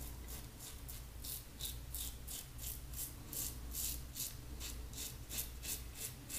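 Maggard V3 safety razor with a Personna 74 blade scraping through lathered neck stubble in short, quick strokes, about four a second.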